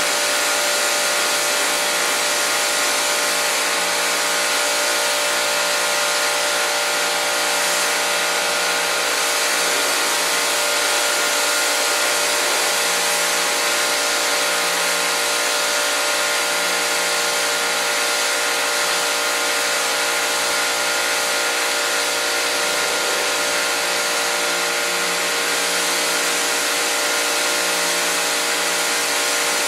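Spray wand driving a fan of water onto a fabric pillow, a continuous loud hiss of spray with the steady hum of the machine's pump motor underneath.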